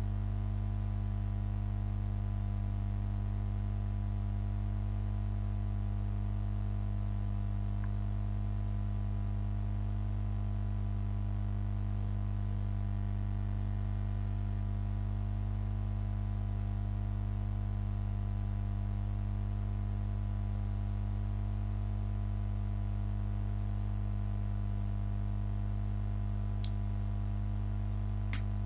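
Steady electrical hum with a stack of overtones, unchanging throughout, with two faint clicks near the end.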